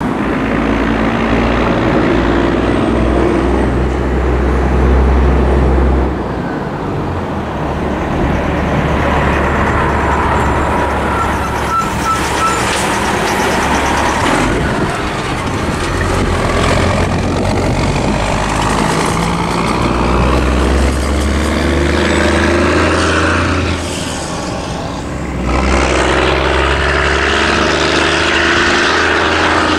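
Road traffic passing close by: cars and a semi-truck driving past, the truck about halfway through, over a continuous low rumble.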